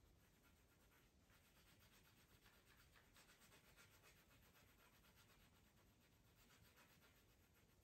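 Faint scratching of a coloured pencil rubbing back and forth on the paper of a colouring book in quick strokes.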